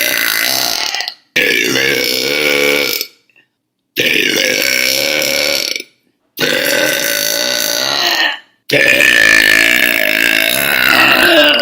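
A woman's deliberate, deep, loud burps, one after another: the tail of one, then four more, each lasting about one and a half to three seconds, with short silent gaps between them.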